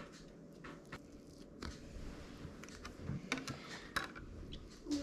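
Scattered light taps, clicks and scrapes of a flat scraper cutting down through a slab of chocolate brownie and knocking on a bamboo cutting board, with a few louder taps in the second half.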